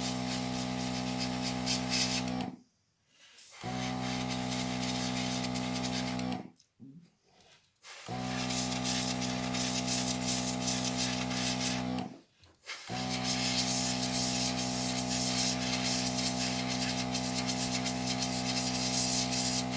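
Airbrush compressor running with a steady electric hum while the airbrush hisses with air spraying glass paint. The sound cuts off sharply three times, for about a second each, and starts again.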